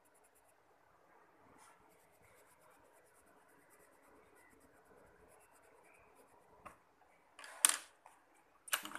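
Coloured pencil scratching softly and steadily on paper as a drawing is shaded in, with two louder, brief scrapes near the end.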